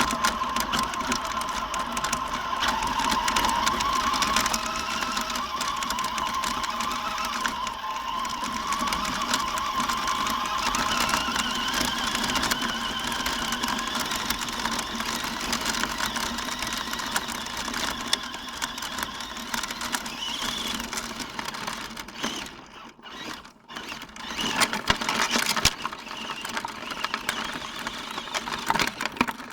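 Small electric motor of a radio-controlled car whining steadily, its pitch rising and falling as the throttle changes. About 23 seconds in the sound drops out twice, and scattered knocks and clatters follow.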